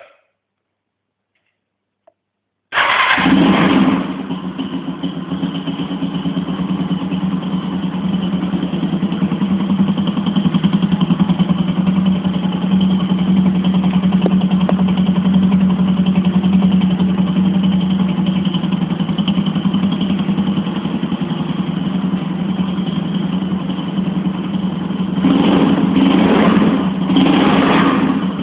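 Guowei GW150-5C motorcycle engine: a click, then about three seconds in the engine starts, flares briefly and settles into a steady idle. Near the end the throttle is blipped twice.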